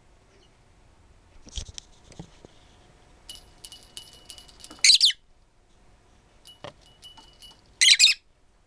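Lutino peach-faced lovebird hen giving harsh, quack-like calls: two loud double calls, one about halfway through and one near the end, with quieter clicks and chirps between them.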